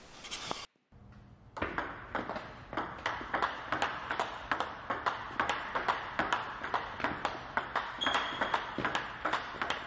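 Table tennis ball being struck repeatedly by a bat faced with Butterfly Dignics rubber and bouncing on the table: a quick, even run of sharp pings, about three a second, starting about a second and a half in.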